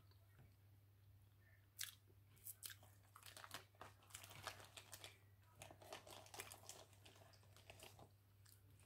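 A person eating a crab boil meal: chewing, with a run of sharp crunches and clicks starting about two seconds in.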